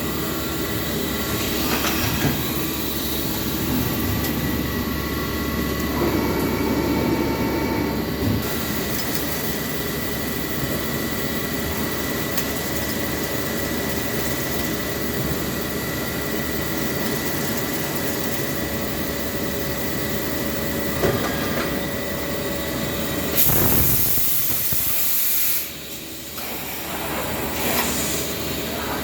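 Okuma Macturn 30 CNC lathe running, a steady mechanical hum with a constant high whine. About three-quarters of the way through comes a hiss lasting about two seconds, and the noise then dips briefly.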